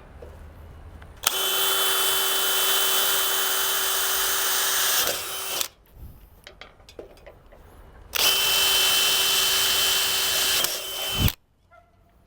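Power drill run twice, about four seconds and then about three, pre-drilling mounting holes through the motorized screen's housing with a 1/4-inch aluminum bit. Each run is steady and eases off just before it stops.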